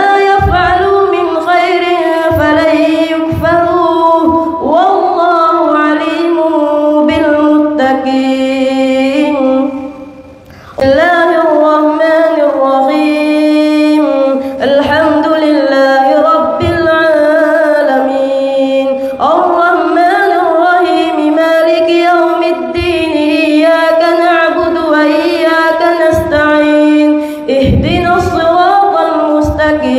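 A boy's high voice chanting Quran recitation in a long melodic tajweed style through a microphone, each phrase drawn out and ornamented, with one breath pause about ten seconds in.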